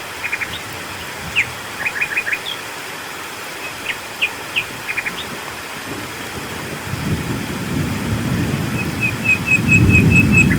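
Steady rain hiss with birds chirping in short calls. From about seven seconds in, a low thunder rumble builds and is loudest near the end, while a bird gives a quick run of repeated notes.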